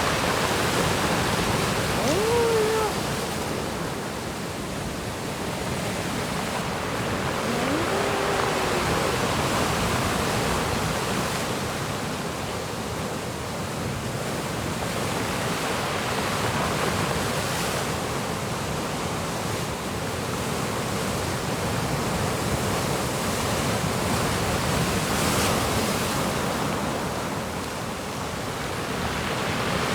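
Rough sea surf: waves breaking and washing in as a continuous rush that swells and eases every several seconds. Two brief rising calls sound over it, about two and eight seconds in.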